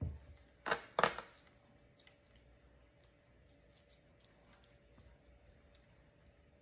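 Utensils working marinade onto raw steaks in an aluminium foil tray: two short, loud scraping sounds about a second in, then only faint soft dabbing and tapping as a basting brush spreads the marinade.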